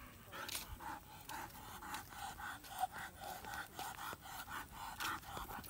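German Shepherd dog panting, about three breaths a second, with a few faint clicks.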